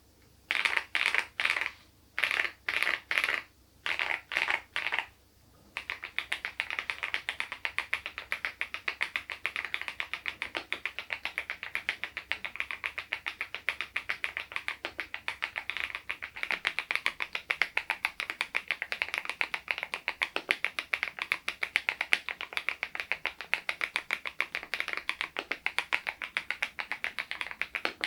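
Full-size mechanical keyboard (SPM PL108W) fitted with Baby White switches being typed on: a few short clusters of keystrokes, then steady fast typing from about six seconds in.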